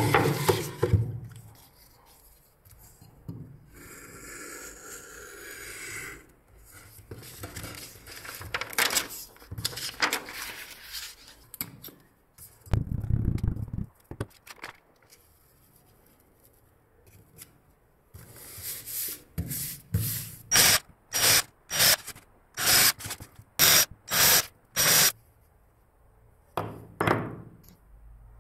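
Hands handling and rubbing a paper template against a plywood board: paper rustling and scraping, then a run of about a dozen quick, even rubbing strokes in the second half as the sheet is pressed flat.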